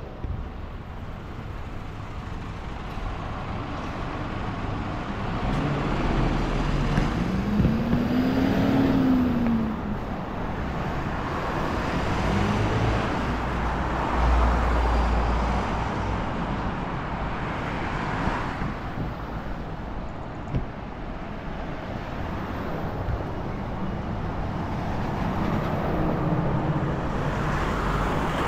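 Steady road traffic on a wide city arterial road, motor vehicles passing one after another and swelling and fading. An engine tone rises and falls between about seven and nine seconds in, and a low rumble comes around fourteen seconds.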